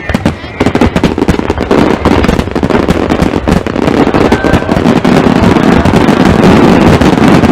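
Fireworks display: a dense, rapid crackling and popping that thickens into a continuous loud barrage about half a second in.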